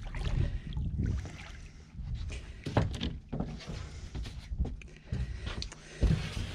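Knocks and thumps on a small boat's fibreglass deck as a dogfish is lifted aboard and lands, the loudest about three seconds in, over a low uneven rumble.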